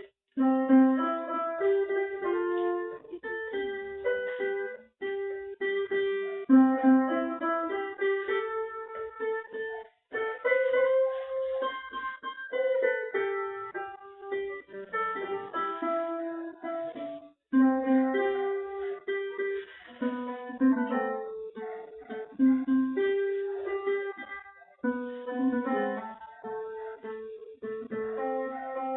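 Electronic organ playing a slow melody, with guitar accompaniment.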